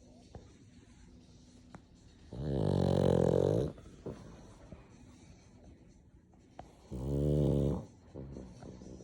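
Pug snoring in its sleep: two loud snores, each lasting about a second, come about two and a half seconds in and again about seven seconds in, with faint breathing and small clicks between them.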